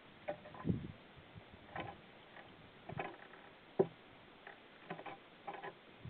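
Irregular sharp taps and knocks on wood, about seven in six seconds, from a female grey-headed woodpecker working on the sticks at the nest edge close to the microphone.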